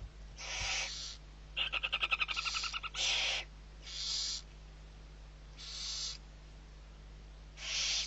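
Barn owl nestlings hissing to beg for food, in short breathy hisses every second or two. Between about 1.5 and 3 seconds in comes a rapid stuttering run of about a dozen quick pulsed calls, the loudest part.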